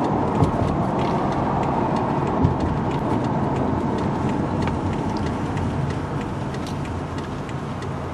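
A car being driven, heard from inside the cabin: a steady rumble of engine and tyre noise, easing off a little in the last couple of seconds.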